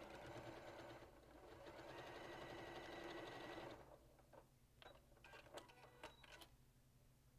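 Sewing machine stitching a dart, running steadily with a brief ease about a second in, then stopping a little before halfway through. After it stops there are a few light clicks and taps as the fabric piece is lifted off the machine.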